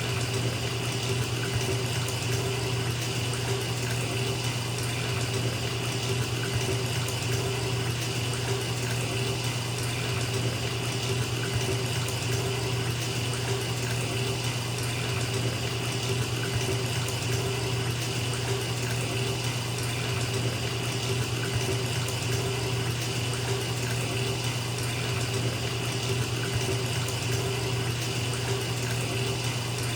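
Bathtub filling from a running tap: a steady, unbroken rush of water pouring into the tub.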